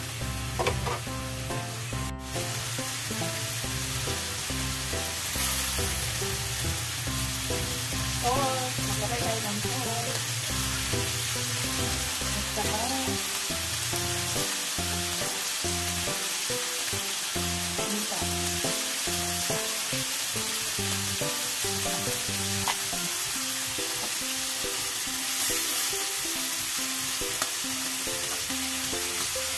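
Chicken pieces and garlic sizzling steadily as they fry in oil in a stainless steel wok, with background music playing over it.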